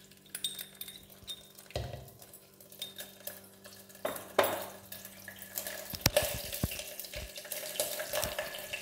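Ginger paste dropped into hot oil in a clay pot, starting to sizzle, with a few sharp clicks and knocks along the way. The sizzle builds from about halfway through.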